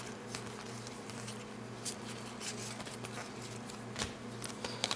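Basketball trading cards being leafed through in the hands, one after another: light, irregular clicks and slides of card stock, over a faint steady hum.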